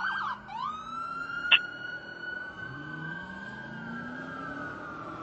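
Fire apparatus electronic siren switching from a fast yelp to a wail that rises, holds and then slowly winds down. Underneath it the truck's engine rises in pitch twice as it accelerates. A single sharp, loud blip comes about a second and a half in.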